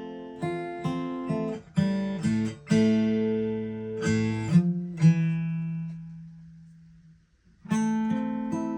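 Taylor 214 DLx steel-string acoustic guitar playing plucked chords. About five seconds in, a chord is left to ring and fades away almost to silence, and the playing starts again near the end.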